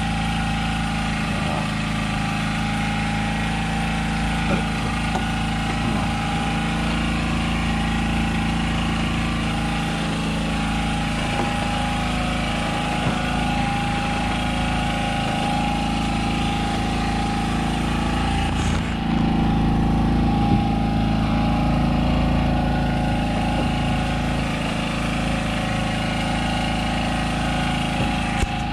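Engine on a fishing boat running steadily at idle, a constant low drone; it gets slightly louder about two-thirds of the way through.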